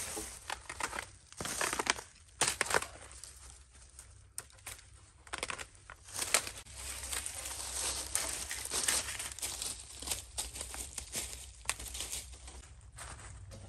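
Irregular rustling, crinkling and crackling, with scattered sharp crackles and brief quieter gaps.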